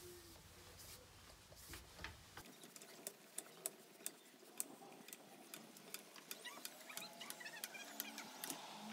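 Steel wall-mount hose reel being cranked to wind a garden hose onto its drum: faint, irregular clicking, with a few light squeaks in the second half.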